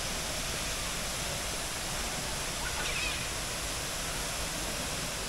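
Steady rush of falling water, with a brief high bird chirp about three seconds in.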